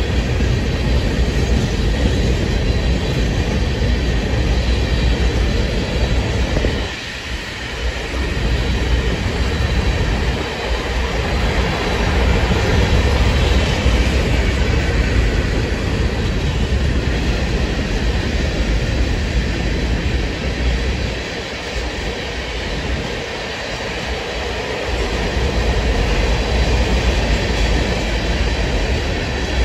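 Freight train of open-top hopper cars (a rock train) rolling past: the steady noise of steel wheels running on the rails, easing briefly about seven seconds in and again around twenty-two seconds in.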